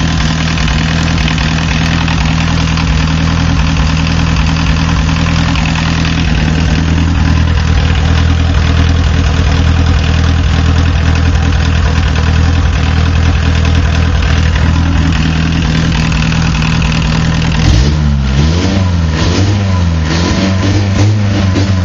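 VW diesel engine idling with a cylinder misfiring at low rpm, which the owner puts down to a bad injector that opens poorly on small amounts of fuel. About three-quarters of the way through, the engine speed starts rising and falling repeatedly.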